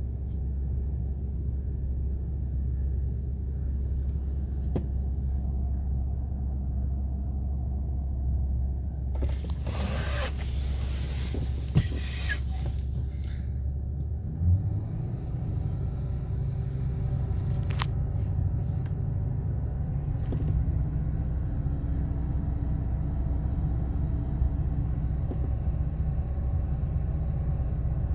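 Ford 6.8-litre V10 engine idling with a misfire, a steady low rumble. About halfway through, after a short knock, the idle note changes. A few seconds of rustling hiss and a click come a little before that.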